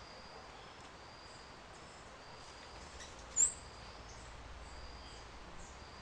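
Faint natural outdoor ambience: a run of thin, high-pitched notes repeating over a quiet background hiss, with one sharp, brief high chirp about three and a half seconds in.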